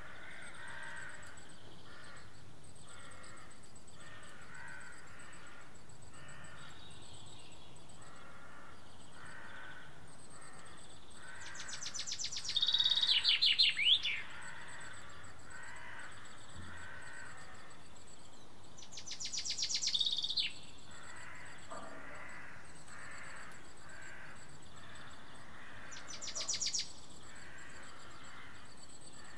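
Birds calling: a songbird sings a loud trilling phrase three times, about seven seconds apart, over a steady run of repeated calls from other birds.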